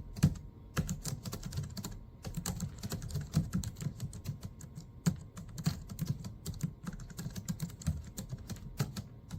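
Continuous fast typing on a Logitech MX Keys, a low-profile non-mechanical keyboard: soft, tappy keystrokes with minimal clicking.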